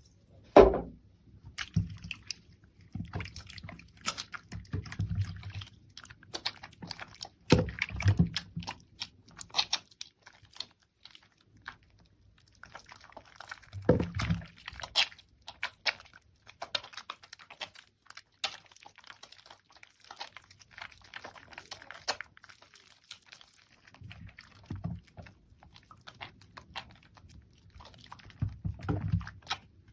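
Soaked soap and its foam lather being squeezed and worked by hands. It makes irregular wet clicks and squishes, with soft low thumps every few seconds.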